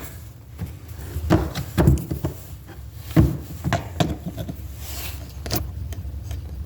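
Scattered light clicks and knocks of hand tools and small metal parts on a distributor as a pickup air-gap adjustment is set and its screws tightened, about half a dozen irregular taps.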